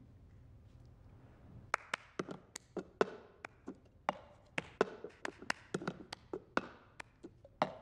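Cup-game rhythm: a hard plastic cup tapped, slapped and knocked on a stage floor, mixed with hand claps, in a fast, repeating pattern of sharp clicks and knocks that starts about a second and a half in.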